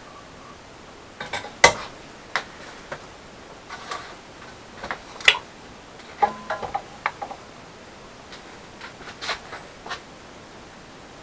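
Irregular metal clinks and knocks from steel rod and tools being handled while round rod is bent in a vise, with a short ringing clatter about six seconds in.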